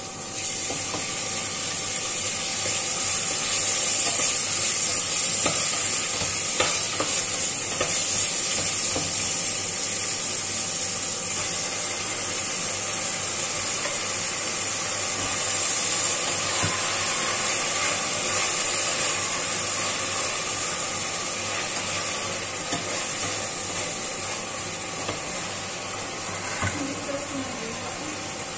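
Raw chicken pieces sizzling in hot oil in a steel pot, with the hiss starting as the meat goes in and running on steadily while a wooden spatula stirs it, giving a few light knocks against the pot.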